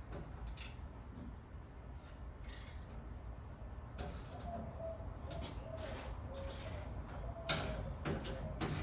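Metal parts and hand tools clicking and knocking as the steel latch piece of a spare tire rack is worked off its base plate. The clicks come irregularly, with a sharper knock about seven and a half seconds in.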